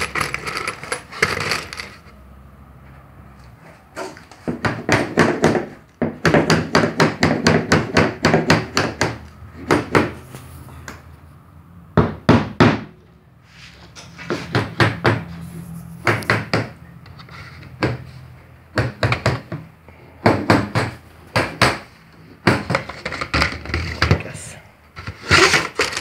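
Light, rapid hammer taps on the metal came and the nails along the edge of a leaded stained glass panel, in bursts of a few seconds with short pauses between.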